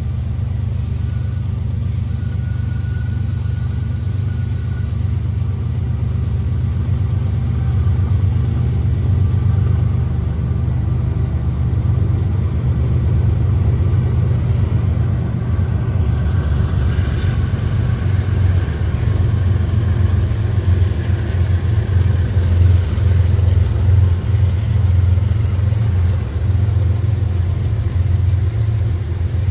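Diesel locomotive engine running with a steady, loud low rumble.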